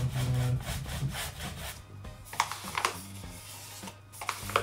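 Paintbrush scrubbing brown paint onto bare plywood in repeated short, scratchy strokes, with a few sharp clicks in the second half.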